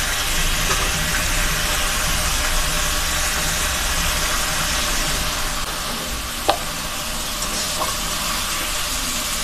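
Chopped vegetables sizzling as they stir-fry in a metal wok over a gas burner, a steady frying hiss, with a single sharp metal clink about six and a half seconds in.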